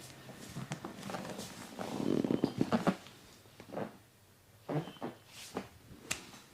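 Hands massaging bare skin: rubbing and patting, densest and loudest about two to three seconds in, with scattered sharp clicks and a few shorter bursts later.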